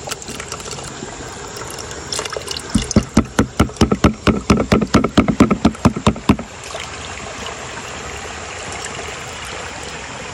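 Water sloshing in a plastic gold pan shaken quickly back and forth, about four sloshes a second for some three and a half seconds starting about three seconds in, over the steady rush of a shallow river.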